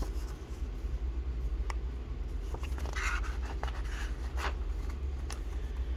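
Paper rustling with a few light clicks as a picture book's page is handled and turned, over a steady low hum.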